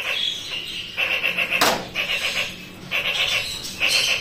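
A bird calling over and over in short pitched calls, roughly one a second, with a single sharp knock about a second and a half in.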